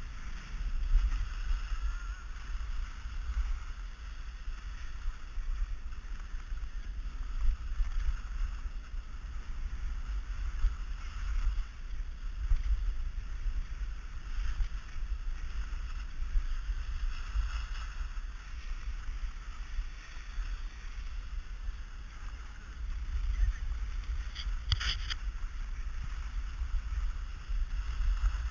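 Wind buffeting an action camera's microphone as a skier runs down a groomed slope, with the steady hiss of skis sliding over the snow. There is a short sharp click near the end.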